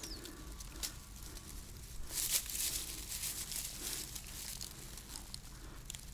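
Dry grass rustling and crinkling under hands unhooking a small trout, with a few faint clicks and a louder rustle about two seconds in.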